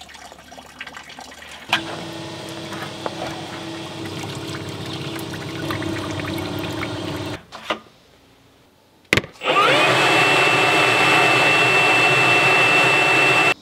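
Old coolant running in a stream into a plastic bucket and splashing. Then, after a click, a cordless leaf blower spins up with a quick rising whine and runs loud at a steady high whine, blowing the leftover coolant out of the radiator and engine.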